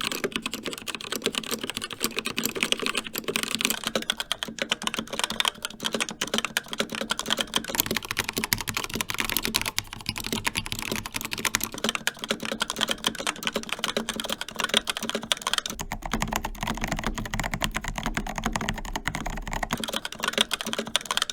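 Continuous fast typing on three mechanical keyboards in turn. First is a CZC Dwarf with linear Kailh Red switches, then a Corsair K70 Pro Mini Wireless with linear Cherry MX Red switches from about 8 seconds in. From about 16 seconds in it is a Melgeek Pixel with Kailh Pixel T switches, its keystrokes joined by a low hum.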